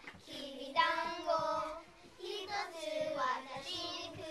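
A group of young children singing together in Japanese, two sung phrases with a brief pause between them about halfway through.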